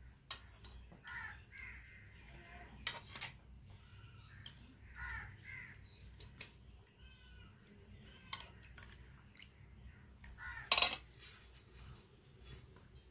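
Steel ladle clinking against a steel pot and plate while serving fish curry, a few separate knocks with the loudest near the end. Crows caw faintly in the background.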